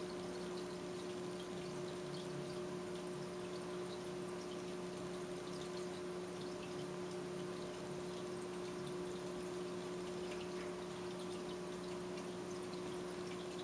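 Aquarium filter running: a steady trickle and splash of water falling into the tank, with faint scattered drips, over a steady low electrical hum.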